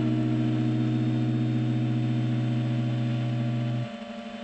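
Background music: a held synth chord with a low bass note that cuts off about four seconds in, leaving a quieter sustained tone.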